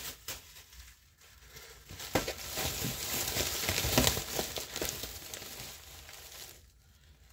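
Plastic crinkling and rustling as it is handled, with many sharp crackles. It starts about two seconds in, is loudest in the middle, and dies away near the end.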